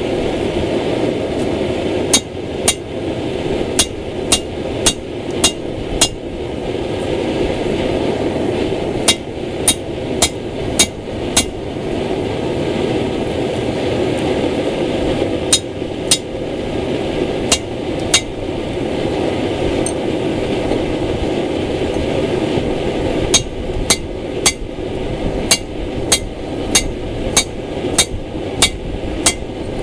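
Hand hammer striking a steel drift through a hot mild-steel billet to open the eye of an axe head: sharp blows in four runs of about four to eleven strikes at roughly two a second, with pauses of a few seconds between. A steady rushing noise from the running forge lies under the blows.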